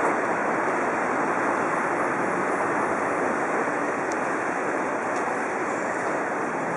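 Steady rushing background noise of a large airport terminal hall, with a couple of faint ticks about four and five seconds in.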